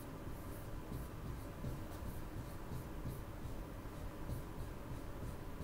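Dry-erase marker writing on a whiteboard: a faint, irregular run of short squeaking and scratching strokes as a word is lettered.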